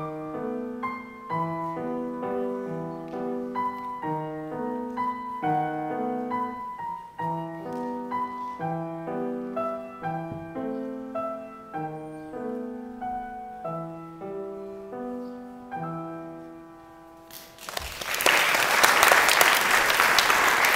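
Grand piano playing a waltz in an even lilting rhythm, low bass notes under higher chords. The final chord fades out, and then an audience breaks into loud applause for the last few seconds.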